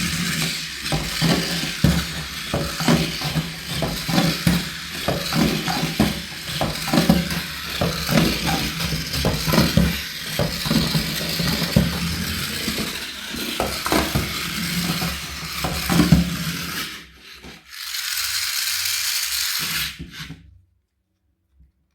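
Toy tank running: a small motor and gears whirring steadily, with irregular clicking and rattling. It drops out briefly about seventeen seconds in and stops near the end.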